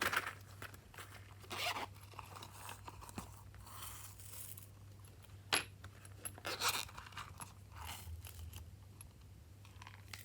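Slime being kneaded and stretched by hand: irregular sticky crackles, clicks and crunches, louder around the start and again about six seconds in, over a steady low hum.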